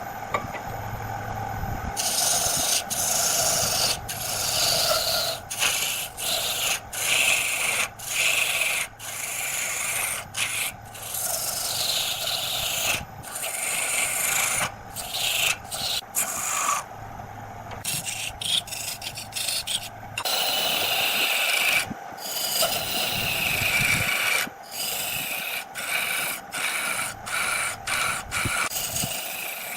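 Wood lathe running while a turning tool cuts into the spinning wood: a rough, scraping shaving noise in many short passes that start and stop abruptly, over the steady hum of the lathe.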